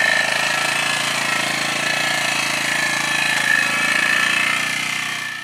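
Polaris ATV engine running steadily as the four-wheeler drives along.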